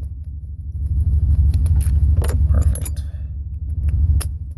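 Sharp metal clicks and clinks from a lever lock's cylinder and parts being handled and refitted, a few scattered clicks with the sharpest near the end, over a steady low hum.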